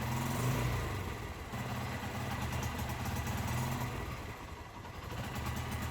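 Hero Honda Karizma's single-cylinder engine running with a misfire. Its note cuts out and stumbles twice, about a second in and again near the end, then picks back up, as though the fuel had run out. This is the 'missing' fault, which can come from faulty motorcycle wiring, the carburettor or the spark plug.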